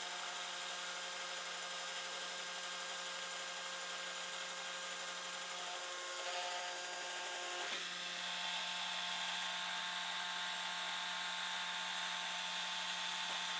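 Small electric motors of a prototype CNC crosscut saw running: a steady whine of several tones over a hiss. The tones shift about six seconds in and again near eight seconds.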